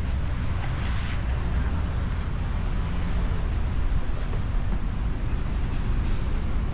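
Motorcycle engine running steadily under a constant rush of wind noise, with a few short, high chirps over it.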